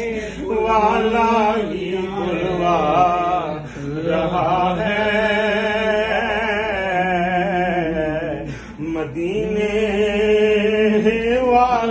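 Male voices chanting Sufi zikr, a melodic devotional chant in long, held phrases with a brief break about eight and a half seconds in.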